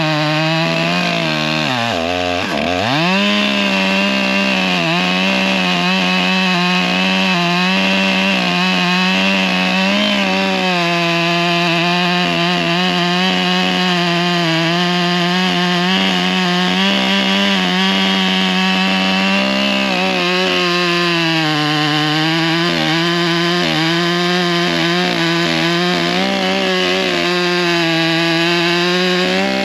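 Stihl 661 Magnum two-stroke chainsaw with a 36-inch bar running at full throttle while cutting through a big oak log. About two seconds in the revs drop sharply and climb straight back, then hold steady under load.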